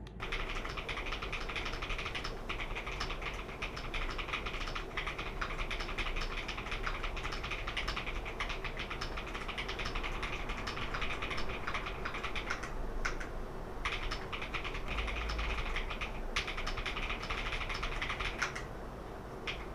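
Keys of a KeysMe Lunar 02 hot-swap mechanical numpad being typed on quickly, a dense run of key clacks with a few brief pauses in the second half.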